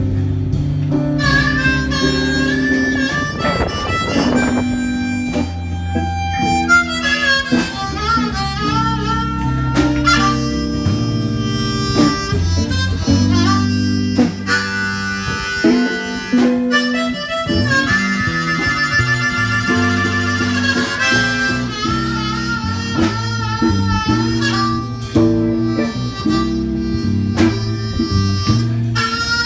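A small band playing an instrumental blues passage: a lead melody over guitar accompaniment.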